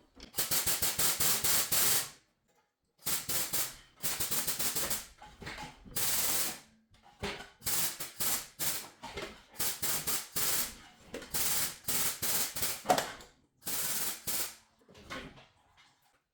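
Impact wrench hammering in about a dozen short bursts of roughly a second each, with brief pauses between, working a stubborn fastener loose.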